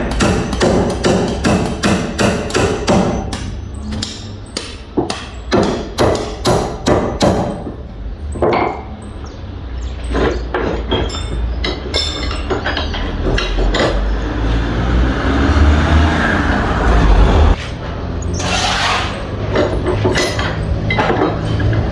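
Construction-site noise: hammer blows struck rapidly, several a second, then more sparsely. Later a low machine rumble runs for a few seconds and cuts off suddenly, followed by two short bursts of rushing noise.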